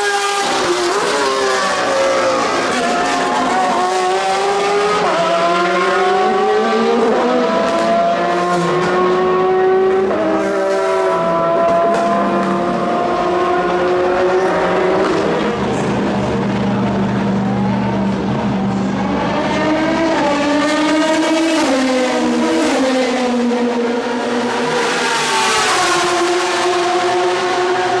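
Porsche 991 RSR GTE race cars' naturally aspirated flat-six engines at full throttle, the pitch climbing through each gear and dropping back at every upshift as the cars pass and pull away. A second run of hard acceleration through several gears comes past the middle, with more than one engine heard at once.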